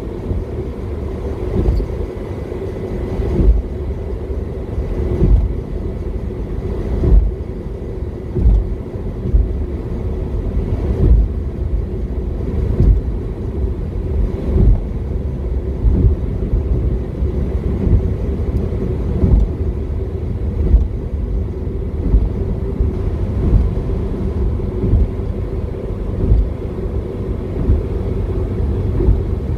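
Car driving on the road: a steady low rumble of engine and tyres, broken by frequent irregular thumps as the wheels go over bumps in the road.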